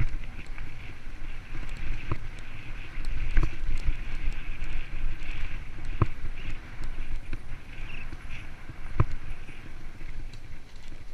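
Mountain bike rolling fast along a dirt forest trail: a steady low rumble and rushing noise from the tyres and the ride, with several sharp knocks and rattles as the bike jolts over bumps and roots.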